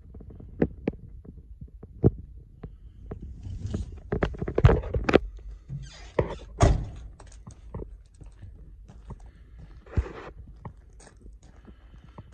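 Someone climbing down out of a truck cab and walking away: knocks, scrapes and handling rustle, with the loudest thunk about six and a half seconds in, over a low steady throb. Single knocks follow as they walk on sandy gravel.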